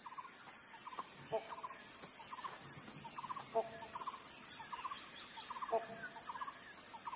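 Birds calling in the background: short, quick runs of chirps about once a second, and a louder call with two held notes about every two seconds.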